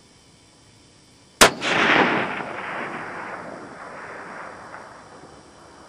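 A single .308 rifle shot with a 155-grain Sierra load about a second and a half in: one sharp crack, then a long echo that dies away over about four seconds.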